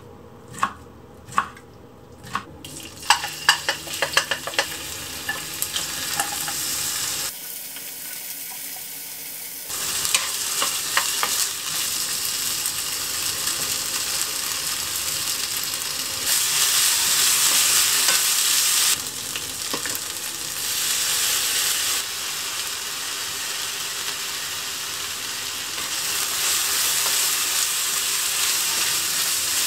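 A kitchen knife taps through fried fish cake on a wooden cutting board several times. Then sliced fish cake and vegetables sizzle in a frying pan as they are stir-fried with a wooden spatula, the hiss jumping in level at a few cuts.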